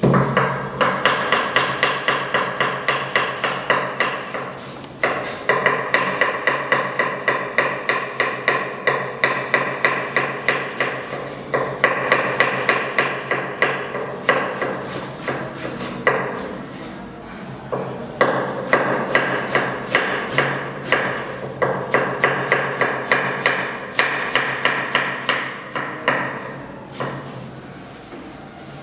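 Kitchen knife shredding cabbage on a wooden cutting board: quick, even chopping strokes, about five a second, the blade knocking through the leaves onto the board in long runs with brief pauses between them.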